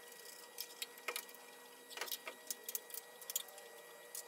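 Faint, irregular metallic clicks and ticks of a T-handle Allen key turning a 6 mm socket-head cap screw into the lathe's computer-arm mounting bracket.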